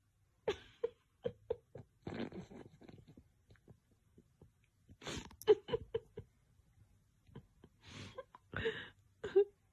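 Quiet, stifled laughter in a few short bursts of quick ha-ha pulses, with breathy puffs between them.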